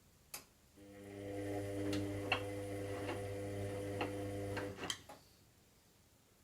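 Washing machine, early in its cycle, running a motor briefly: a click, then about four seconds of steady hum with scattered light clicks, stopping with a couple of knocks.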